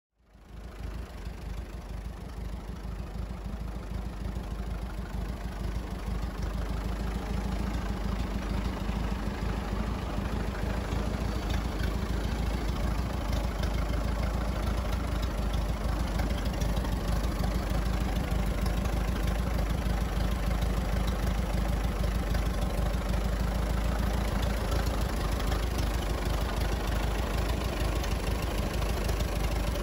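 Fordson F tractor's four-cylinder engine idling steadily, coming up sharply from silence at the start and getting a little louder over the first several seconds.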